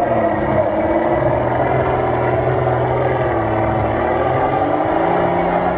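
Off-road truck's engine working hard under load as it ploughs through a deep mud pit, its pitch wavering up and down with the throttle and rising a little near the end.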